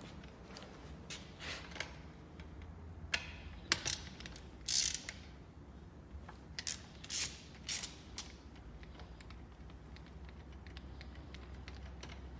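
Ratchet wrench clicking in several short bursts as its socket is worked on the cylinder head bolts of a Ford Fiesta 1.3 engine. The loudest strokes come between about three and eight seconds in; after that it goes quieter.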